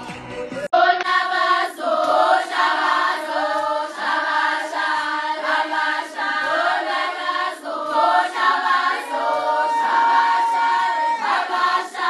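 A group of women and girls singing a traditional Zulu song together in chorus, several voices at once over a steady low part. It starts abruptly less than a second in, cutting off the music before it.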